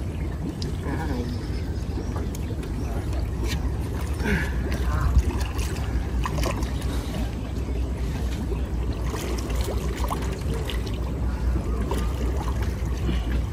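Water sloshing and splashing around a landing net holding a large Mekong catfish in shallow lake water, as a man wades beside it, over a steady low rumble.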